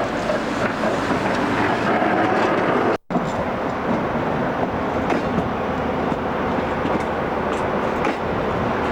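Train running on the rails, a steady rumble with a few faint clicks of wheels over rail joints. The sound drops out completely for a moment about three seconds in.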